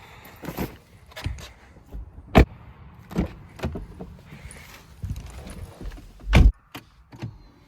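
Keys jangling among a series of sharp clicks and knocks, then a car door shutting with a heavy thump about six and a half seconds in.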